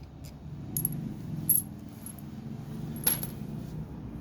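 Small metal parts and tools clinking and tapping four or five times, sharp separate clicks, over a steady low hum.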